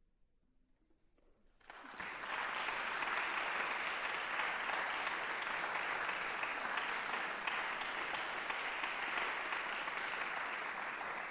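A brief hush, then an audience breaks into applause about two seconds in, steady and sustained, at the end of a piece of music.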